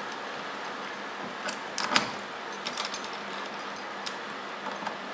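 Banana-plug patch cords being handled and pushed into sockets on an electronics trainer board: scattered light clicks and rattles, the sharpest about two seconds in, over a steady hiss.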